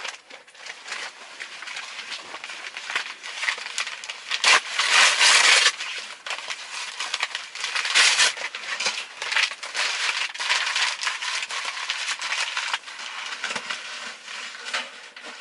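Crackling and rustling as a tent stove is lit and handled, with dense small clicks throughout and louder noisy bursts about four and a half and eight seconds in.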